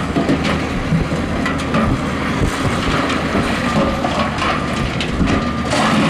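Heavy earthmoving machinery at work: a diesel engine running steadily under load, with irregular rattling, clanking and crunching of gravel and rock.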